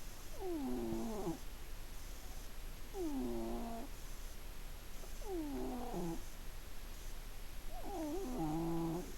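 Sleeping domestic cat snoring: four pitched snores, each sliding down in pitch, about one every two and a half seconds.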